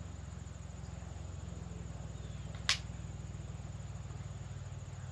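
A single sharp crack from a .22 rifle shot, about halfway through, over a steady low hum.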